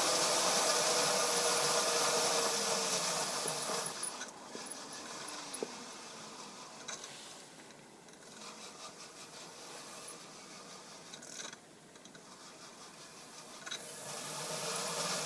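Roco 63228 model locomotive's motor and gears running along the track with a steady rubbing whirr. It is louder for the first few seconds, fades in the middle, and grows louder again near the end, running smoothly under its new decoder.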